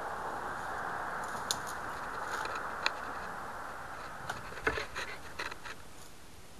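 Steady hiss heard through the rocket's on-board keychain micro-camera, fading slowly, with scattered faint clicks and crackles that come more often after about four seconds.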